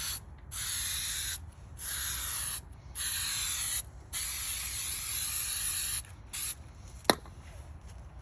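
Aerosol can of 3M Super 77 spray adhesive spraying in repeated hissing bursts of about a second each with short breaks between, the last one longer at about two seconds, then a brief puff. A single sharp click about seven seconds in.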